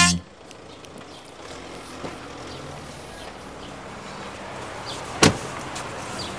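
Steady city street noise, with a car door shut once about five seconds in, the loudest sound.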